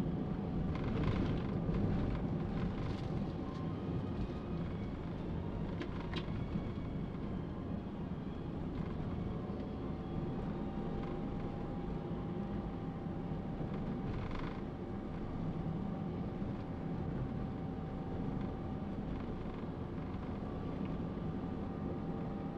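Road and engine noise of a moving Toyota Calya with a manual gearbox: a steady low rumble with a faint steady whine that fades out briefly partway through, and a few short knocks or swishes.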